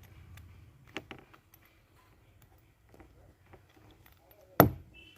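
Handling noises while unpacking a drill kit: faint scattered clicks and taps, a couple of sharper ticks about a second in, and one sharp, loud knock near the end.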